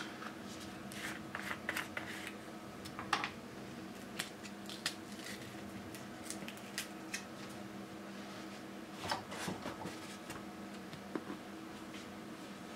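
Sharp clicks, light knocks and short scrapes of hard plastic laser toner cartridge parts being handled and set down, in uneven clusters, over a faint steady low hum.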